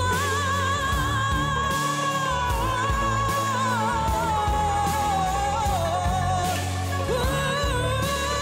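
A singer holds one long, wavering note over a live pop-rock band. The note sinks slowly through the middle, and a new sung phrase begins near the end.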